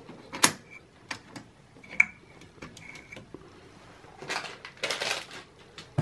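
A series of sharp metallic clicks as the LGA1366 CPU socket's load plate and retention lever are closed and latched over a newly seated Xeon processor. A few clicks ring briefly, and short rustles of handling follow.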